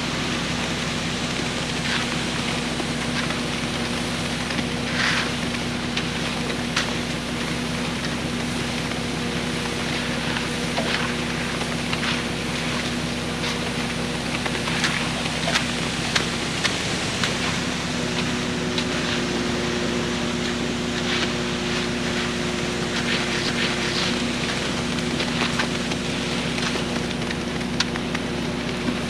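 An engine running steadily, its pitch shifting slightly about seventeen seconds in, with scattered clicks and scrapes over it.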